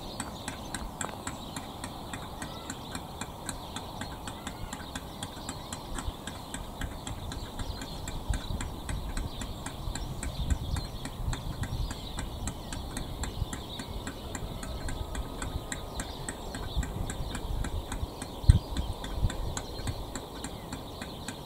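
Outdoor ambience with low rumbling gusts of wind on the microphone and a steady, fast, even ticking at about four ticks a second; one dull bump sounds near the end.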